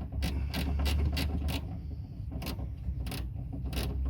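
Ratchet wrench clicking as a 10mm nut inside a car door is turned off through an access hole. The clicks come about three a second at first, then more spaced out.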